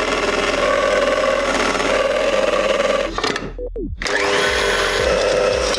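KitchenAid Heavy Duty stand mixer motor running steadily. A little past three seconds in it drops away briefly, then starts again and rises in pitch as it speeds up.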